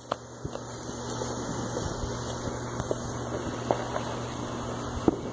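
Steady background hiss with a low hum, broken by a few sharp clicks and pops.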